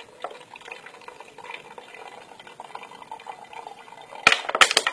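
Filtered water trickling from a portable water filter into a plastic drink bottle. A quick cluster of sharp clicks about four seconds in is louder than the trickle.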